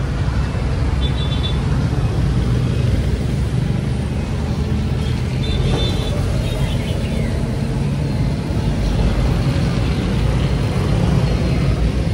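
Battery-powered plastic toy train running steadily around a plastic track, its motor and wheels making a continuous low-heavy running noise close to the microphone.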